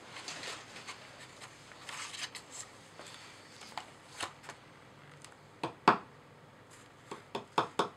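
A small hammer tapping a chisel into the crumbly block of a dinosaur excavation kit, with light scraping and crumbling of the block between taps. The taps are scattered and soft at first, then a handful of sharper ones follow in the last few seconds, the loudest about six seconds in.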